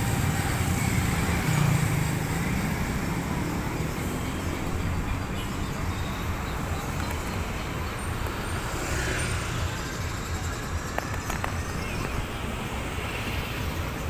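Street traffic in a busy town centre: motorcycles and cars running by as a steady rumble, a little louder in the first couple of seconds and then easing.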